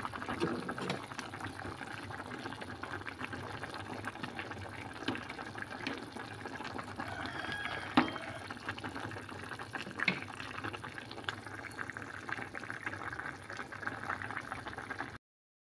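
Vegetable broth boiling in a stainless steel pot, a steady bubbling and crackling. A few sharp clicks stand out, the loudest about halfway through.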